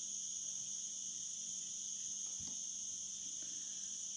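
A steady high-pitched drone of insects in the background, with a faint brush of tarot cards being moved in the hands about halfway through.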